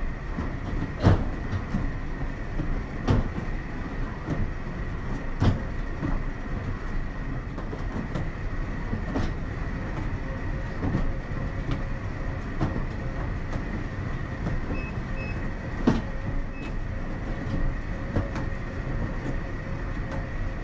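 Stepmill stair climber running: a steady machine hum with a thin whine, and a clunk about once a second as the revolving steps take each footfall.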